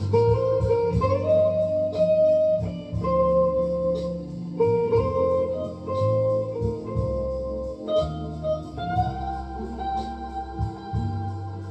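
Telecaster-style electric guitar playing a single-note melody of held notes with occasional upward slides or bends, over sustained organ-like chords and bass.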